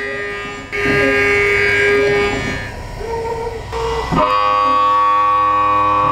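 A CNC mill-turn machine's end mill cutting a crankshaft web, giving a steady whine of several held tones. The pitch shifts about a second in, dips around three seconds and steps up sharply just after four seconds as the cut changes.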